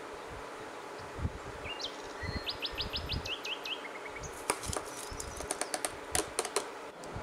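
A bird chirps a quick run of short notes in the background. About four seconds in, a cluster of sharp clicks and taps follows as drained basmati rice is tipped from a metal mesh sieve into the pot.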